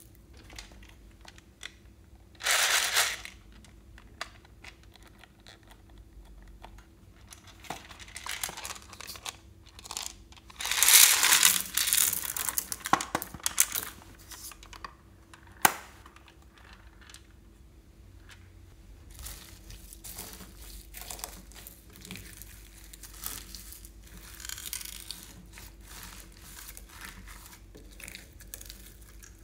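Hands working slime with loose beads, sequins and glitter in a glass dish, making crinkling, crackling and rustling in bursts. The loudest bursts are a short one about three seconds in and a longer one from about ten to fourteen seconds, followed by a single sharp click. Over the last ten seconds comes a softer, continuous crackle as the slime is kneaded through the beads.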